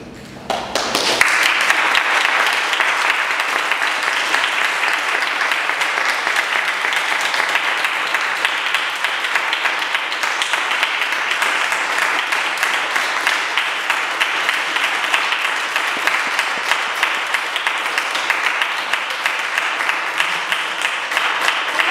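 Audience applauding, the clapping breaking out suddenly about a second in and then holding steady and dense.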